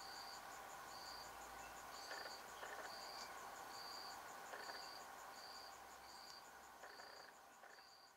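Insects chirping in the background: a short high chirp repeating a little more than once a second over a faster, even pulsing trill higher up. It fades away toward the end.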